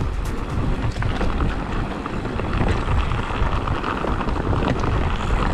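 Electric mountain bike riding a rough trail: wind buffeting the camera microphone over a steady rumble from the tyres, with scattered clicks and rattles.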